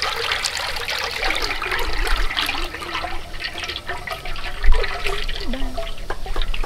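Cooking oil pouring in a steady thin stream into a large metal wok, splashing and trickling into the growing pool of oil. There is one brief louder knock about two-thirds of the way through.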